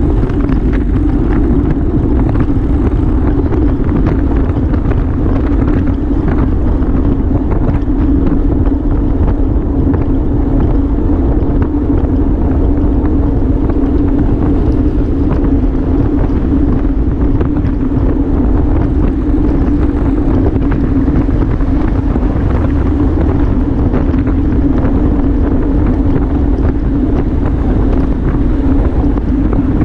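Steady wind rush over the microphone of a camera riding along on a road bike at race speed, with an unbroken low hum underneath.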